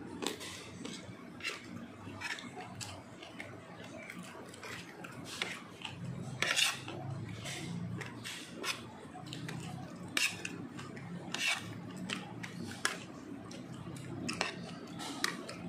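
Metal cutlery clinking and scraping on ceramic plates during a meal: irregular sharp clinks scattered throughout, the loudest about six and a half seconds in, over a faint low murmur.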